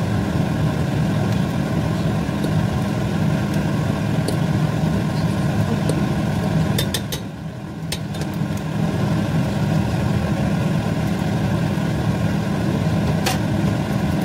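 Steady low mechanical hum that dips briefly about seven seconds in, with a few faint clicks.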